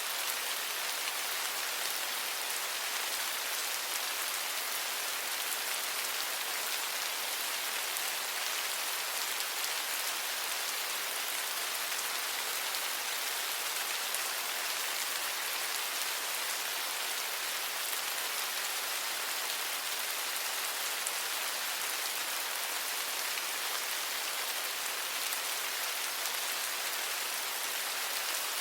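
Steady rainfall: an even hiss of rain with fine pattering drops, unchanging in level.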